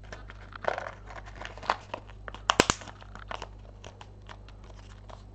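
Kraft-paper treat pouch crinkling and rustling as it is handled, in a string of irregular crackles, with a pair of sharp clicks, the loudest sounds, about halfway through.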